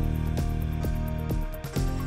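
Background music with a steady beat, about two beats a second, over held electronic tones.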